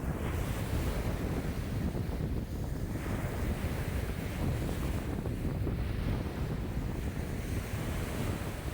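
Wind-driven waves breaking and washing on a lakeshore in a strong wind of about 5 m/s, with wind buffeting the microphone as a constant low rumble. The wash swells and eases in surges a few seconds apart.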